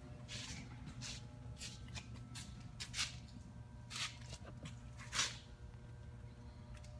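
Footsteps scuffing, several brief ones at uneven intervals, over a steady low hum.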